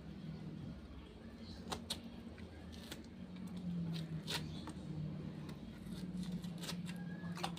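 Young coconut shell being handled and scraped by hand, giving several sharp separate clicks and scrapes, over a steady low hum.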